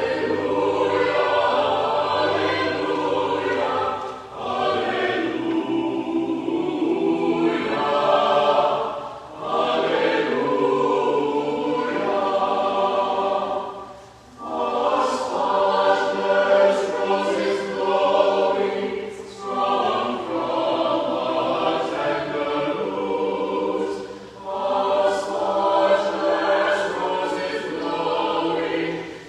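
Small mixed choir singing sustained chords in phrases, pausing briefly about every five seconds, with crisp sung 's' sounds in the later phrases.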